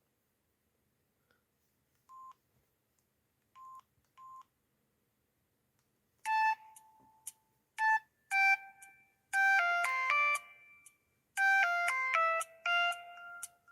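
Samsung SGH-B300 mobile phone: three short faint key beeps, then from about six seconds in a ringtone melody of quick staccato notes, played loudly through the phone's small speaker.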